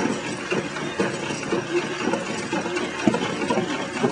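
Homemade compound planetary pendulum inertial-drive machine running, its motor-driven whirling pendulum arms making a busy mechanical clatter of small knocks and rattles.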